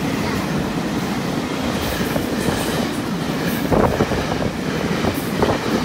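TRA PP push-pull Tze-Chiang express coaches passing through at speed: a steady rail rumble with wheels clacking over the rail joints, and a few sharper knocks in the second half.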